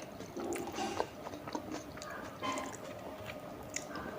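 Close-up chewing and biting of tandoori momos: irregular wet mouth clicks and smacks.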